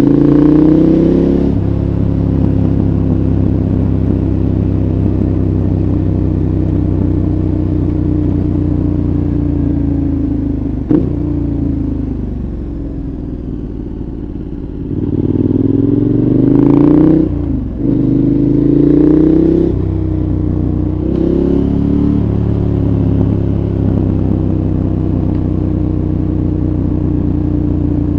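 2014 KTM 1190 Adventure's V-twin engine through a Giannelli exhaust with dB killer, heard from onboard while riding. It mostly holds a steady note. A sharp click comes about 11 seconds in, and the engine then drops quieter with a slowly falling pitch. From about 15 seconds it revs up in several short rising pulls, each broken off as it shifts up, before settling back to a steady cruise.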